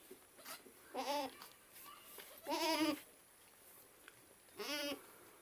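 Goat bleating three times, each a short wavering cry, the middle one the longest and loudest.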